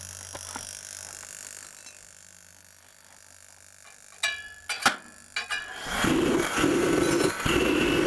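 A few clicks and knocks of handling, then, about six seconds in, the diesel space heater's electric motor starts and runs its fan blade with a loud, throbbing drone. The motor and pump had been binding and are now freed up.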